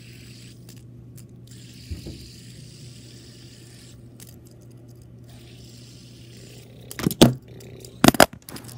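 Handling noise of a fidget spinner being fiddled with in a hand close to the microphone: light scraping over a low steady hum, with a small knock about two seconds in and loud clusters of knocks and rubbing about seven and eight seconds in.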